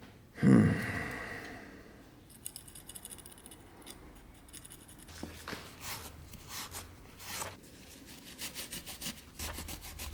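Hand-tool work at a workbench: a heavy thump about half a second in, then a stretch of fast fine ticking, then a series of short scraping strokes.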